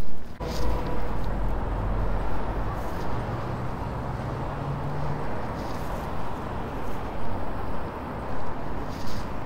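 City street traffic: a steady rumble of passing cars, with an engine tone standing out for a couple of seconds in the middle.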